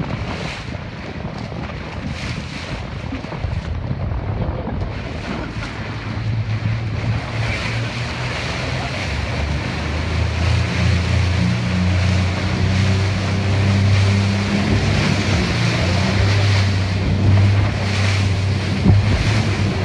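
Wind buffeting the microphone over the rush and slap of choppy sea water from aboard a small center-console motorboat. A low steady engine drone comes in about six seconds in and grows louder.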